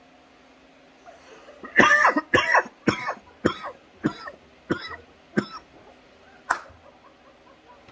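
A man coughing hard after a dab hit from a glass rig: a string of about eight sharp coughs, roughly two a second, starting about two seconds in and tailing off with a last single cough near the end.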